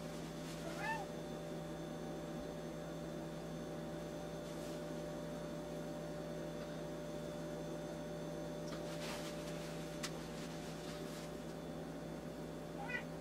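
A steady electrical hum, with a cat meowing faintly about a second in and again near the end.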